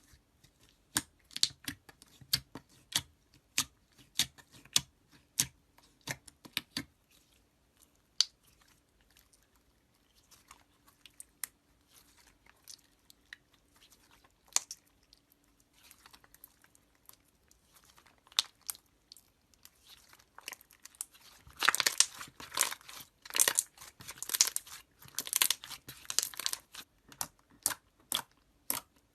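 Slime being squished and poked by hand: quick wet clicks and pops, sparse in the middle, then a louder, denser crackling stretch about three-quarters of the way in.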